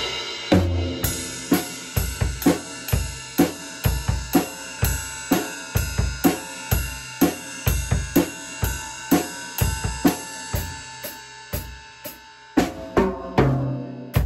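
Acoustic drum kit played in a steady beat: kick drum and snare hits under ringing cymbals. There are heavier low drum hits about a second before the end.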